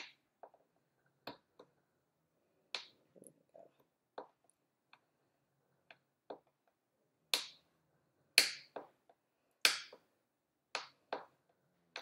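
A small dowel-like tool pressing face paint down into a little paint pot, giving sharp, irregular clicks and taps. The loudest few come in the second half.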